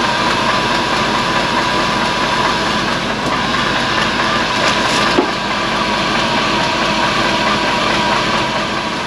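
An old engine idling steadily while it warms up, not yet hot enough for the thermostat to open. It has a light rattle that the owner takes for piston slap from worn cylinders. One brief click about five seconds in.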